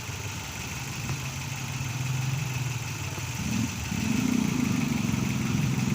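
Car engine idling steadily, with a faint steady high-pitched whine over it. About halfway through the sound gets louder and a wavering lower note comes in.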